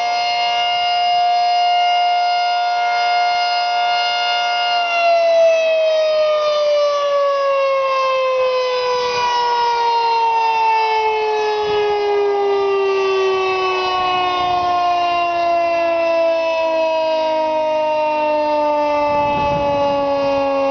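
Federal Signal 3T22 three-tone outdoor warning siren sounding a steady chord, then winding down from about five seconds in, its pitch falling steadily to the end.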